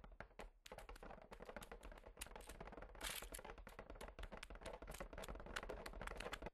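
Dense, irregular rapid clicking and ticking: the film's sound effect of many small baby spiders skittering over the mine floor.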